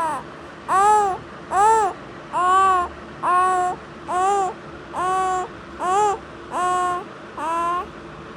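Baby giving a regular series of short wailing calls, each rising and falling in pitch, about ten of them at a little under one a second.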